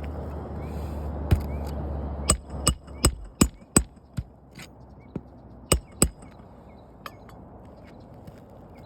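A dozen or so sharp metallic knocks, like a hammer or pry bar striking nails and shingles on a roof: a quick run of them near the middle, then fewer and softer ones. A low steady hum fades out just before the knocks start.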